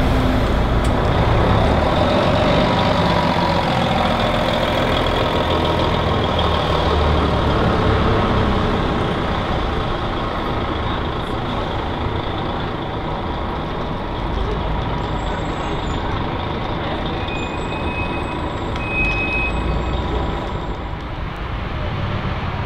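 Diesel engine of a Volvo city bus running as the bus pulls away from the stop and drives off, loudest for the first several seconds and then lower as it moves away.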